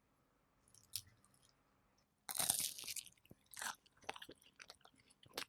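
Crisp puff pastry of a beef Wellington crunching: one loud crackling crunch a little over two seconds in, then a run of smaller crackles.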